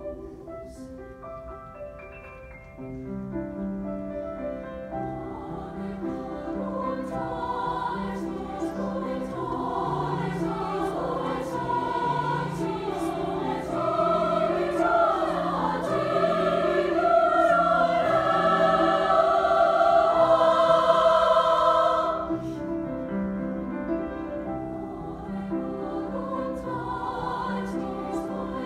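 Women's treble choir singing a classical piece with grand piano accompaniment. Soft at first, the voices come in about three seconds in and build to a loud, full climax, then drop back suddenly to a softer passage about two-thirds of the way through.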